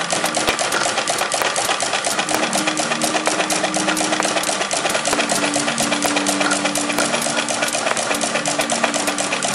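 Restored Adler sewing machine, belt-driven by an electric motor, running at speed while stitching through leather strips: a rapid, even clatter of the needle mechanism, many strokes a second.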